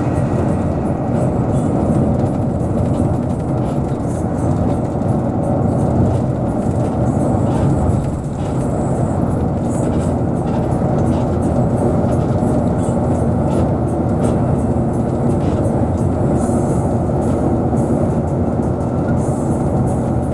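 Steady vehicle engine and road noise while driving.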